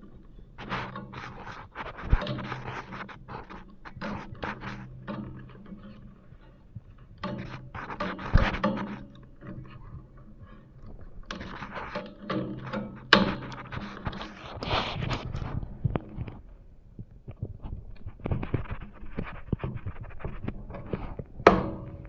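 Hand tools working refrigerator tubing: bursts of clicking, scraping and knocking, with a sharp knock about eight seconds in and another near the end, over a faint steady low hum.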